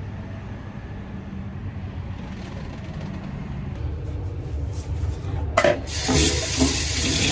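Low steady hum, then a few light clicks, then a kitchen tap running into a sink from about two-thirds of the way in.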